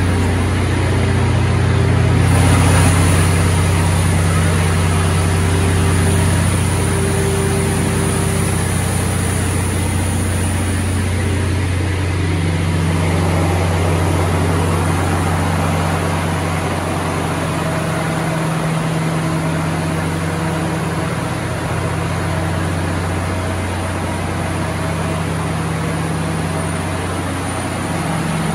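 A 1250 kVA diesel generator set running under full load, close to 1000 kW on the meter. It makes a steady, unbroken low drone, heard from outside its sound-insulated container enclosure.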